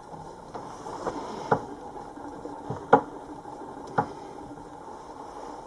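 A few sharp knocks and clicks, about three spaced a second or so apart, over a faint steady hum.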